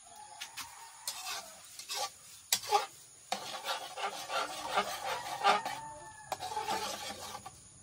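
Metal spatula scraping and stirring eggs in a wok: a run of quick scraping strokes, a few at first, then steady and busy through the second half.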